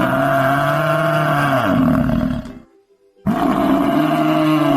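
Buffalo bellowing: two long, low calls, the first fading out about two and a half seconds in and the second starting shortly after.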